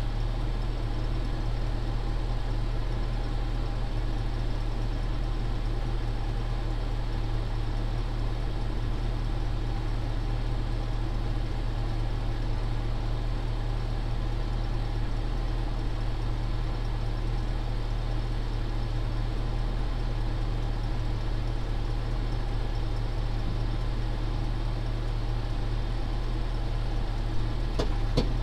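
Truck engine idling steadily. A couple of sharp clicks near the end.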